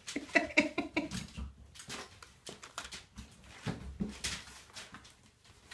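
A puppy whines in a quick run of short pitched pulses during the first second or so. Then comes scattered crinkling and rustling of newspaper as puppies move over it.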